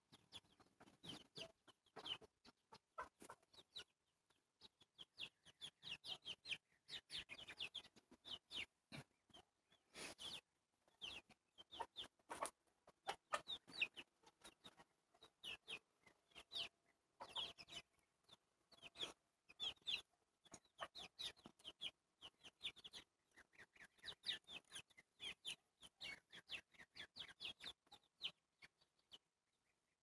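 A small flock of backyard chickens, young white broilers and hens, peeping and clucking quietly while they forage. Short, high calls come in quick runs all the way through.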